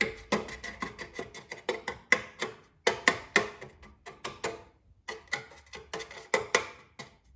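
A metal spoon tapping and clinking against a dish in quick, irregular strokes with a short ring, as brown sugar is shaken off it and sprinkled over cake batter. The taps come a few times a second, with a brief pause a little past halfway and another near the end.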